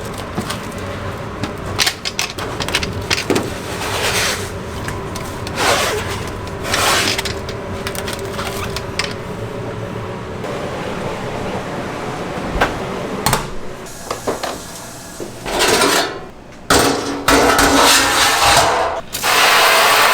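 Restaurant kitchen work: scattered knocks, scrapes and clatter of utensils and cookware over a steady background hum, then a loud steady hiss near the end.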